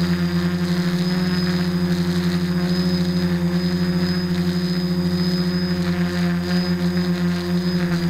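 Quadcopter's electric motors and propellers humming steadily, heard from the camera on the airframe: a loud buzz with several pitches at once that wavers in a fast beat.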